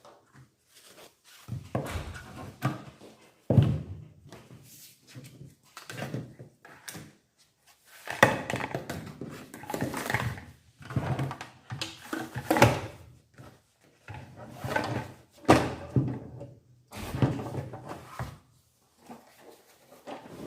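Irregular series of dull thunks and clattering knocks, coming in short bursts every second or two.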